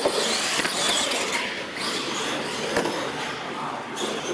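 Radio-controlled monster trucks racing on a concrete floor: electric motors and gears whining, with a pitch that rises and falls, over the hiss of tyres on the concrete.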